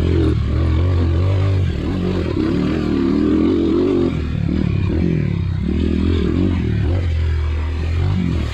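Dirt bike engine running under varying throttle, its pitch rising and falling as it is ridden.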